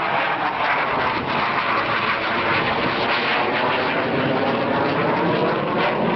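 An aircraft flying overhead, its engine noise steady and loud throughout.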